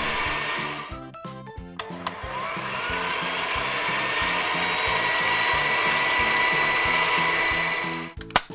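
A whirring machine sound effect with a rising whine, over background music with a steady beat. It breaks off about a second in, with a few clicks, then starts again and stops shortly before the end.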